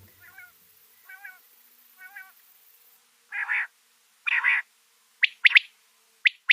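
Male quail calling: three soft, wavering calls in the first two seconds, then two louder harsh calls, then short sharp notes in quick pairs near the end.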